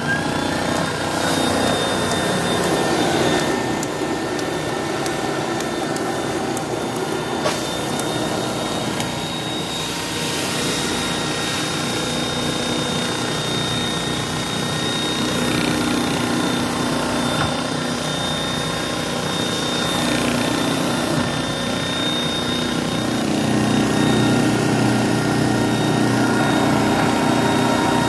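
Advance AquaClean 16XP carpet extractor running: a steady motor whine with a high tone over a rushing noise, growing a little louder and deeper near the end.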